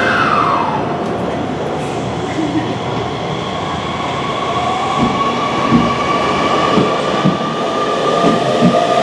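Hanshin Railway electric commuter train pulling out of the station. Its traction motors whine and rise in pitch as it accelerates, and the wheels clack over rail joints from about five seconds in.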